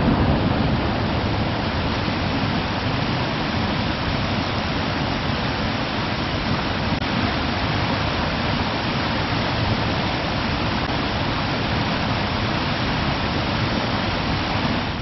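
Steady rush of a fast mountain trout stream tumbling over boulders and small white-water cascades.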